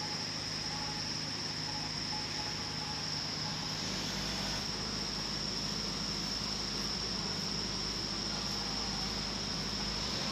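Crickets trilling steadily at night, a continuous high-pitched tone. Under it is a faint low rumble that grows a little stronger about four seconds in.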